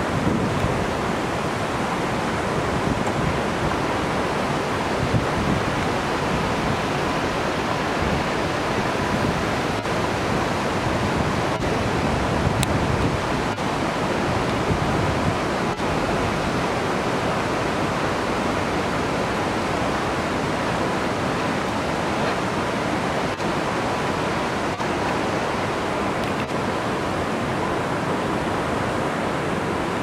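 Steady rushing of waterfalls pouring down the valley walls, with some wind on the microphone.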